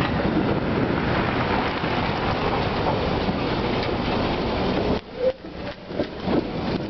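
A Tatra T3SU tram rolling slowly past at close range. For the first five seconds a loud, steady rushing noise from wind on the microphone covers it. Then the noise drops suddenly, and the wheels' scattered clicks and knocks over the depot track and points come through.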